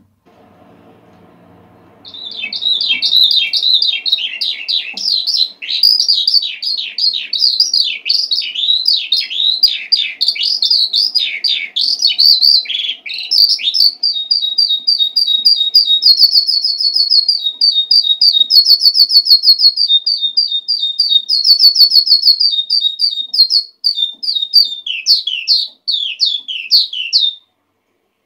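Eurasian skylark singing one long unbroken song, starting about two seconds in: a rapid stream of chirps and downward-sweeping notes that turns into fast, repeated trills in its second half.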